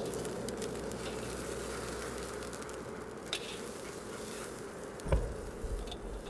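Steady outdoor ambience, a low even hiss and hum, with a low thump about five seconds in.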